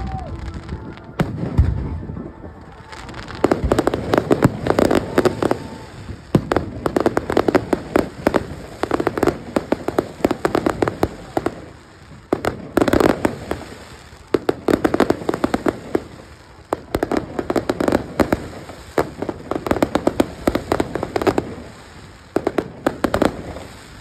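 Fireworks going off: repeated clusters of rapid crackling pops, a new burst every couple of seconds after a quieter first few seconds.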